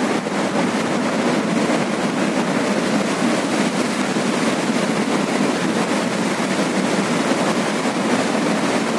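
A muddy river in flood: fast, swollen water rushing past as a loud, steady roar with no let-up.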